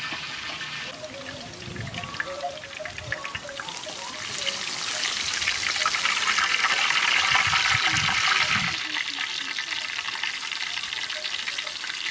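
Battered shrimp deep-frying in hot oil in a wok, a crackling sizzle that swells louder about four and a half seconds in and eases back near nine seconds.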